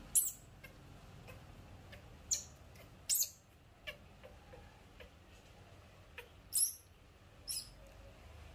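Baby monkey giving short, very high-pitched squeals, about six of them a second or so apart, as it is wiped clean.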